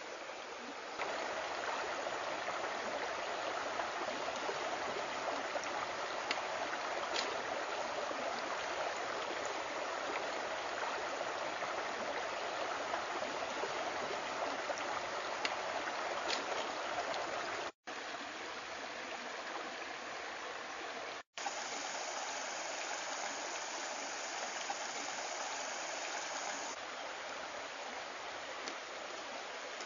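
A shallow stream running over rocks, a steady rush of water that cuts out twice for a split second near the middle.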